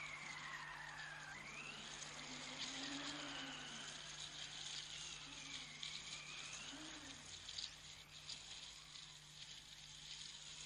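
Quiet, eerie soundtrack tones that glide slowly up and down, a high one throughout and a lower one that comes and goes, over a faint hiss and a steady low hum.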